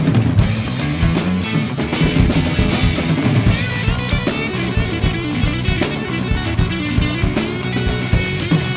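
Rock music from a full band: a steady, driving drum beat with electric guitar and a moving bass line.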